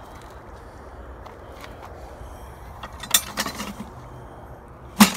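Pieces of scrap metal clinking as they are handled and dropped: a short run of clinks about three seconds in and one sharp clank near the end.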